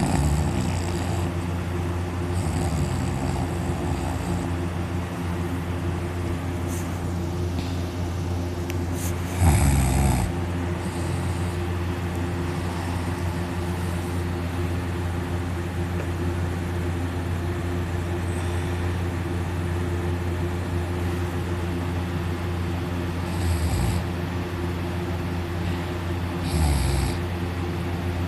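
A person snoring loudly in deep sleep, mouth open, lying on their back: a few separate snores at uneven, long gaps, the loudest about ten seconds in, over a steady low hum.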